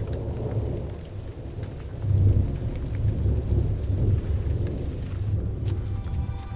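Thunder rumbling over steady rain, the rumble swelling about two seconds in.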